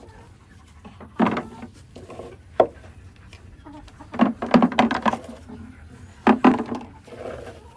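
Eggs being gathered by hand into a bucket: a scattered series of light knocks and clacks as eggs tap against each other and the wooden nesting box, coming in small clusters.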